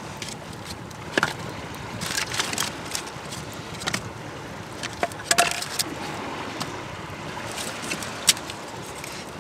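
Small twig-and-grass fire in a stone hearth crackling, with sharp irregular pops; sticks are pushed into it by hand around the middle. A steady rushing noise runs underneath.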